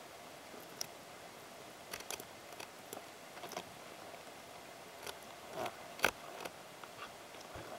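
Underwater recording through a camera housing: faint hiss with scattered sharp clicks and ticks, the loudest about six seconds in.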